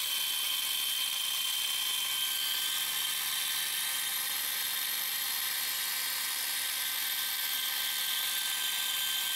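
Graco TC Pro cordless airless paint sprayer running, its pump forcing the storage antifreeze out: a steady hiss of fluid with a thin, even motor whine.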